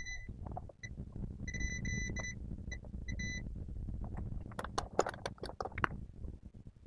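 Multimeter continuity beeper chirping in a string of short, steady high beeps, about six, as the probe tips touch pins around the EC chip while testing for shorts. A quick run of light clicks and taps follows over the last couple of seconds.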